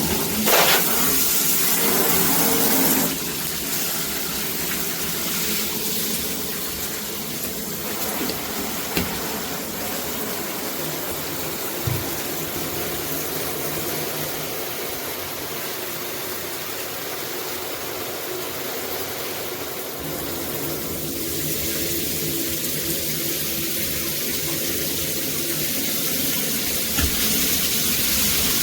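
Water running from a shower head and splashing steadily. It is louder for about the first three seconds, softer through the middle, and louder again from about twenty seconds in.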